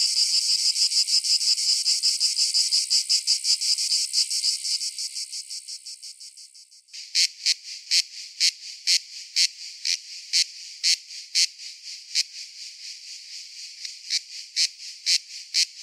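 Insects calling in even, high-pitched pulses: a fast trill that fades away about six seconds in, then, starting suddenly about seven seconds in, a slower, regular train of sharp pulses, a few a second.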